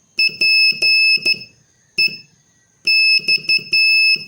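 High-pitched Morse code tone keying the letters P, E, X, the end of the word "apex": dit-dah-dah-dit, a single dit, then dah-dit-dit-dah.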